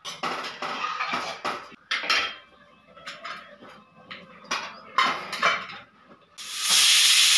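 Metal clinks, knocks and scrapes of a ladle in a pressure cooker and of its lid being fitted. Near the end a loud, steady steam hiss from the pressure cooker starts suddenly.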